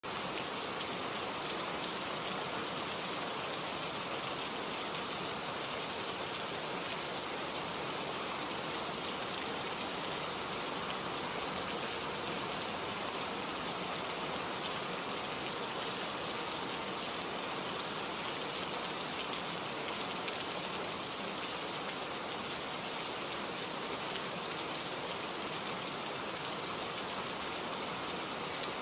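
Heavy rain falling, a steady, even hiss with no let-up.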